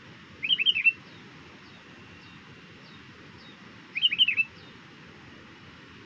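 Sooty-headed bulbul calling: two short bubbly phrases of about four quick notes each, the first about half a second in and the second about four seconds in. Faint high chirps from other birds sound in the background.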